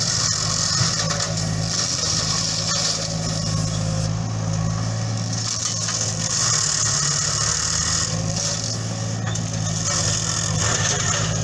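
Diesel engine of a JCB 8035 ZTS mini excavator running steadily at working revs, driving a hydraulic flail mulcher that shreds grass and small saplings. A high shredding hiss swells and fades over the steady engine note as the head bites into the growth.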